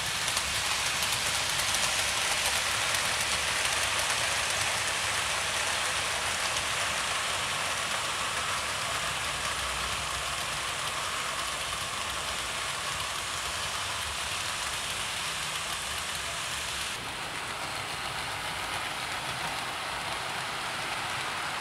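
OO gauge model trains running on layout track: a steady rolling whirr of the motor and metal wheels on the rails. The sound shifts slightly and drops a little about seventeen seconds in.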